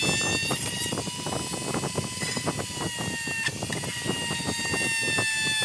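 Handheld rotary tool running at high speed with its bit cutting into a hard plastic dash panel: a steady high whine over a gritty crackle from the cutting. The whine dips briefly in pitch about halfway through, then recovers.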